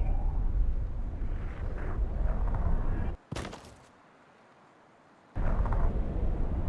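Loud low rumbling noise that cuts off abruptly about three seconds in with a brief hiss, drops to near silence for about two seconds, then starts again just as suddenly.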